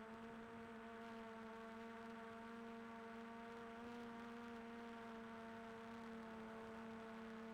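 Faint, steady hum of a small quadcopter drone's motors and propellers, one even pitch with several overtones.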